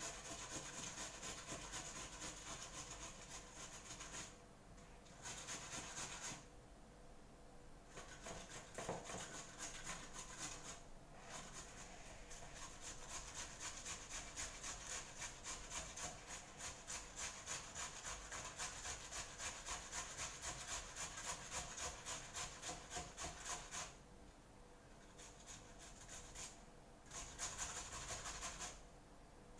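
Potato masher working boiled potatoes in a ceramic bowl: rhythmic scraping and pressing strokes, about two a second, with a few short pauses.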